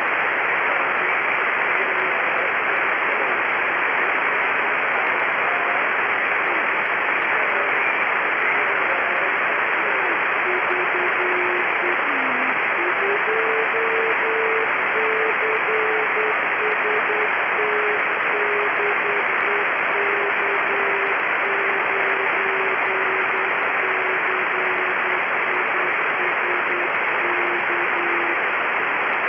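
Satellite downlink hiss from an Icom IC-9700 amateur radio receiver, with a Morse code (CW) tone coming in about ten seconds in, keyed in dots and dashes and drifting slowly down in pitch. It is a station answering a CQ call through the AO-7 satellite, sending 'VA2CST DE K9CIS'.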